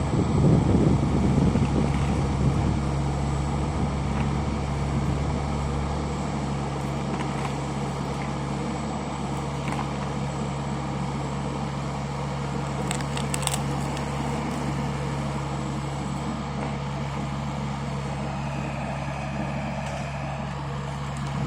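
Lovol FR60 mini excavator's diesel engine running steadily, a little louder for the first couple of seconds.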